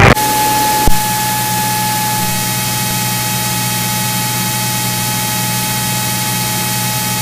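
Steady hiss and low hum of the aircraft's radio and intercom audio between transmissions. A steady tone in the first second cuts off with a click.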